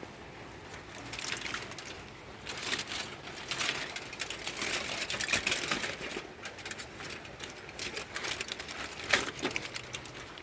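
Aluminum foil crinkling and rustling in irregular bursts as the foil wrap around a whole chicken on a charcoal kettle grill is opened.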